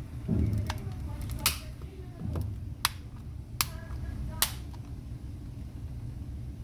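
Sharp plastic clicks, about six of them spread over four seconds, as the halves of a TV remote's plastic case are snapped back together.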